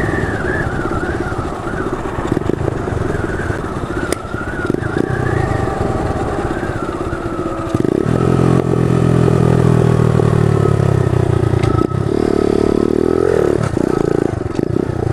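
SSR DX 110cc pit bike's small single-cylinder engine under wind and road noise, running quietly at first. About eight seconds in the engine comes in louder and steadier, with a short rev near the end.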